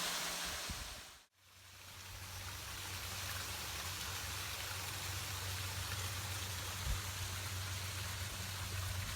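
Steady hissing noise with a low, even hum underneath. It follows a brief fade to silence about a second in.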